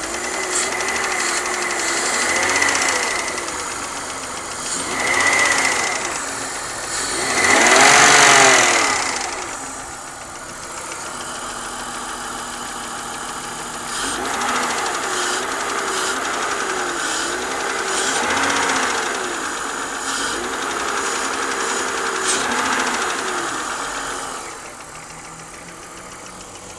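BMW 323i (E46) 2.5-litre straight-six engine being revved in repeated short blips, the biggest about eight seconds in, with sharp pinging ticks from the top end of the engine. The pinging persists after a cylinder head rebuild and valve job, and its cause is unknown to the owner.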